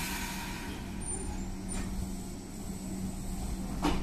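Meitetsu 6500 series electric train pulling away from a station platform, with a steady hum. The air hiss of the brakes releasing fades over the first second. Sharp clacks come about two seconds in and again near the end as the wheels cross rail joints.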